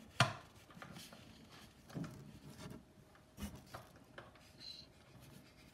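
A few light, separate knocks and taps of a pen and hand on paper over a hard table, the sharpest about a quarter of a second in and another about three and a half seconds in.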